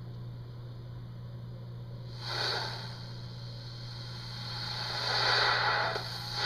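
Steady low hum with two breathy hisses of a person exhaling near the microphone: a short one about two seconds in and a longer one that swells near the end.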